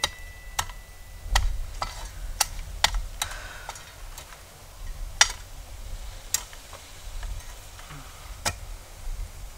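Shovel blade working into soil: about a dozen irregularly spaced sharp clicks and knocks over a low rumble.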